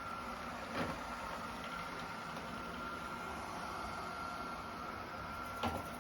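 Robot vacuum cleaner running with a steady motor whine, with two light knocks, one about a second in and one near the end.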